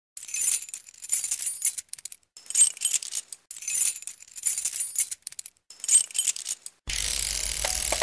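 Title-sequence sound of bright metallic jingling and rattling, coming in bursts about once a second. A little before the end it cuts to a steady hiss with a few faint ringing tones.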